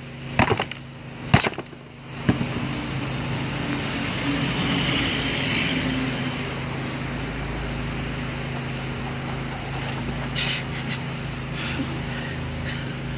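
Three sharp knocks in the first couple of seconds as a lump of coral stone pounds the back of a big knife through a large fish's backbone on a wooden board, followed by a steady rushing noise with a low hum for the rest.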